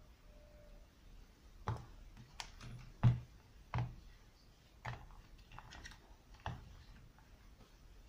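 A handful of light knocks and clicks, about six, scattered and irregular, the loudest about three seconds in: a small circuit board and a plug-in power adapter being handled and set down on a workbench.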